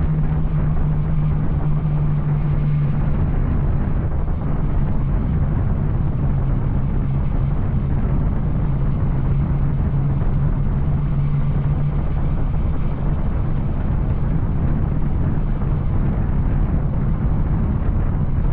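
Yamaha Tracer 900's inline three-cylinder engine running at steady revs through an Arrow aftermarket exhaust, giving an even, unbroken engine note.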